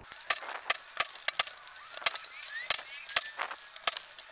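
Sharp, irregular metallic clicks and clinks, about three a second, as Allen-head bolts are backed out of a hydraulic drive motor's housing with a cordless drill.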